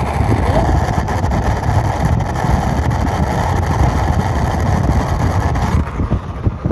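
Voltas window air conditioner running with a loud, steady mechanical noise, which the technician traced to the swing (louver) motor's small reduction gearbox with worn-down gears. The noise eases off slightly about six seconds in.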